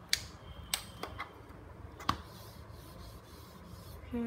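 Several short, sharp plastic clicks and taps, about five in the first two seconds and then quiet handling, as whiteboard markers are picked up and handled.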